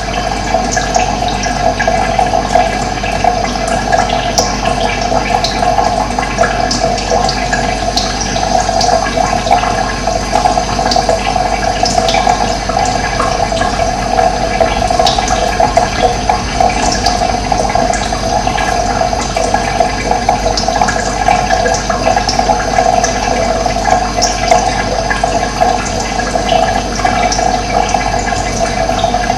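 Running water, a steady rushing flow, with brief high bird chirps scattered over it.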